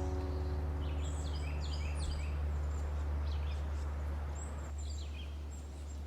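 Birds chirping in short calls scattered throughout, over a steady low rumble, while the last held notes of an acoustic guitar theme song die away in the first second or so.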